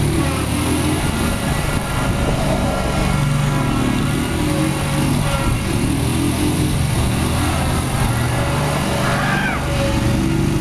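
Small engines of a Hustler FasTrak zero-turn mower and a small quad bike running together as both are driven, a steady drone.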